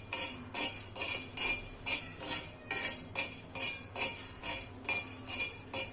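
A spoon stirring whole cloves and black peppercorns as they dry-roast in a pan, clinking against the pan in quick regular strokes, about three a second, each with a short ring.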